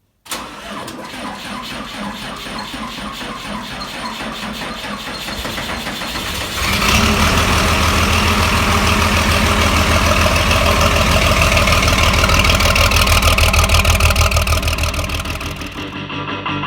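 A farm machine's engine cranks over for several seconds, catches about six and a half seconds in and runs with a strong, even low pulse, easing off near the end.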